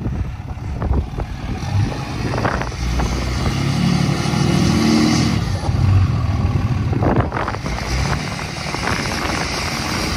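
Ram pickup's Cummins turbo-diesel inline-six revving under load as the truck works to climb out of soft sand onto recovery boards under a rear tire. The engine note rises and is loudest about four to six seconds in.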